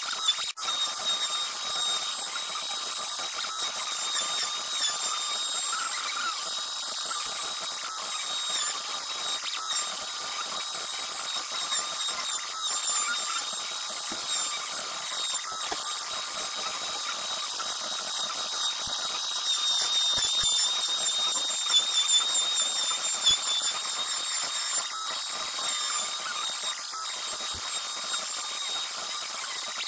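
CNC router spindle running with a steady high-pitched whine while the machine v-carves wood.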